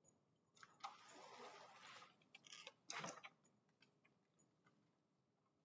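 Faint rustling and scuffing for about a second and a half, with a soft knock near the start and another about three seconds in, then a few light ticks: a dog and a barefoot person moving across a wooden floor by a sliding glass door.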